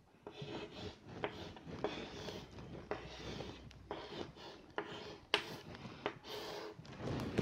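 Chalk writing on a blackboard: faint, irregular scratches and taps of the chalk as a word is written out stroke by stroke.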